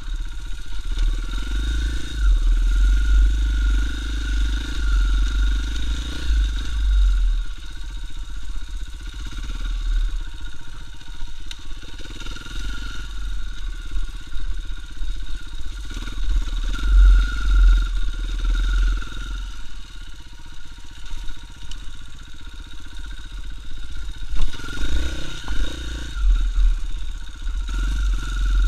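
KTM 450 EXC single-cylinder four-stroke enduro motorcycle engine running as it is ridden on a dirt trail, the throttle opening and easing off several times, with a quieter stretch about two-thirds of the way through.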